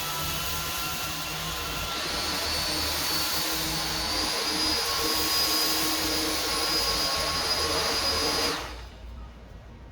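Philips SpeedPro 8043 cordless stick vacuum running, a steady rush of air with a high motor whine that steps up in pitch about two and again about four seconds in, then switches off about eight and a half seconds in.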